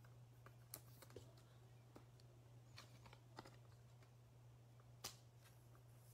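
Very faint, scattered clicks and taps of football trading cards being handled and dropped onto piles, a slightly louder tap about five seconds in, over a steady low hum.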